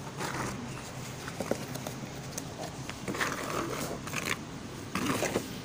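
Rustling and a few light clicks from a hand moving a small plastic doll chair inside a cardboard doll house, in three short bursts: one at the start, one about three seconds in, and one near the end, over a steady low hum.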